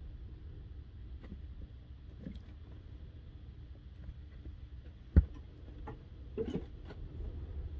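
A black cat climbing into a fabric storage bin on a shelf: one sharp thump about five seconds in, then brief rustling, over a low steady room rumble.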